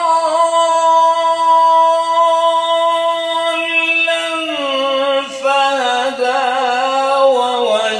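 A man's voice reciting the Quran in melodic tajweed style. He holds one long steady note for about four seconds, then drops lower into a wavering, ornamented phrase.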